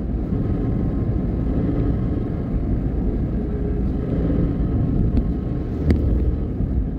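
Steady low rumble of engine and tyre noise heard from inside a moving car, with a single sharp click near the end.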